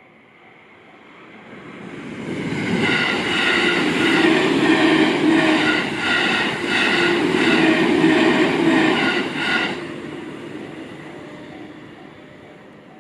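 A JR Takasaki Line train passing over a level crossing. It builds up over the first couple of seconds, runs loud for about seven seconds with a rhythmic clatter of wheels over rail joints, then fades away. The crossing's warning bell rings faintly at the start and again as the train recedes.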